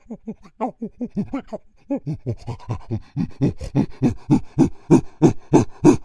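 Chimpanzee giving a rapid, rhythmic series of panting calls, about five a second, growing louder from about two seconds in.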